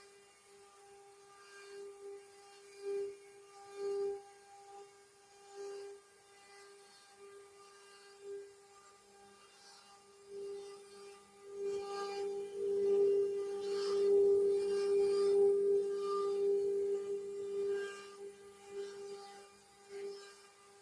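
CNC wood-carving router running with its spindle giving a steady whine, the bit cutting wood in short scraping bursts and then continuously and louder for several seconds from about twelve seconds in.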